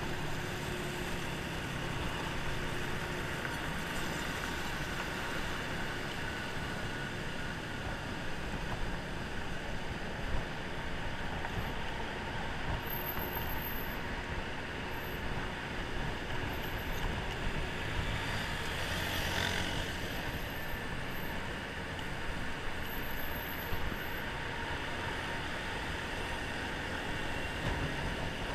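Honda scooter riding through city traffic: a steady rumble of its engine and wind, with the traffic around it. A short hiss stands out about nineteen seconds in.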